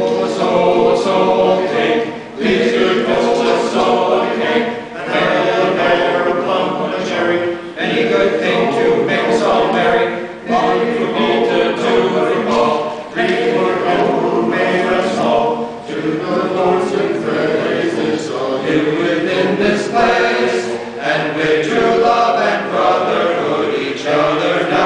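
Men's choir singing a cappella, in sung phrases of a few seconds each with brief breaths between them.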